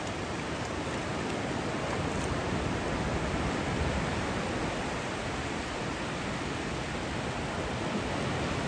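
Ocean surf rushing steadily on the shore, swelling a little midway and easing off again.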